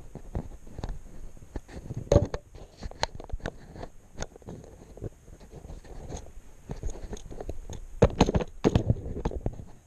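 Handling noise on a small camera riding on a model-railway wagon: irregular scrapes, rubs and knocks as hands move it and set it back on the track, loudest about two seconds in and again near the end.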